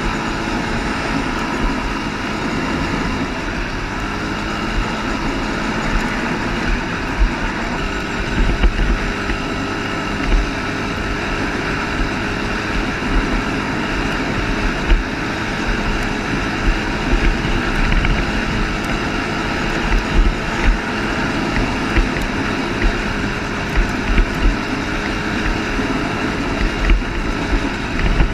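ATV engine running steadily while riding, with wind buffeting the microphone in irregular low thumps.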